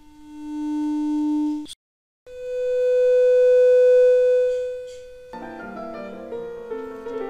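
Smartphone loudspeaker playing a steady low test tone of about 300 Hz from a speaker-cleaner app's tone generator. The tone cuts off with a click about two seconds in, and after a short gap a higher steady tone of about 500 Hz plays for about three seconds. Background piano music takes over near the end.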